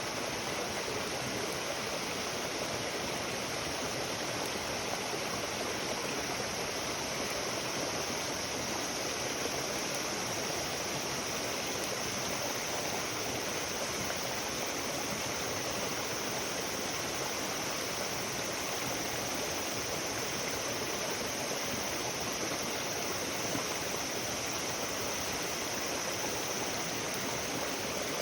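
Steady rushing sound of flowing water, even and unbroken throughout.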